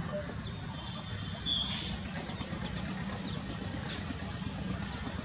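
A small bird chirping in short high notes, repeated about once or twice a second, over a steady low engine drone.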